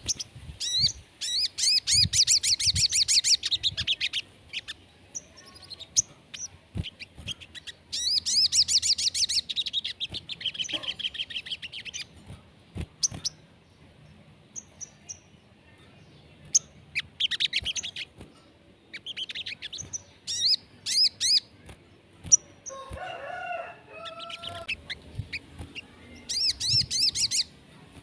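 Sogon songbird singing in bursts of fast, high trilled notes a few seconds long, separated by short pauses; a lower, rougher call comes near the end. This is a sogon's 'gacor' song, used to stir another sogon into singing.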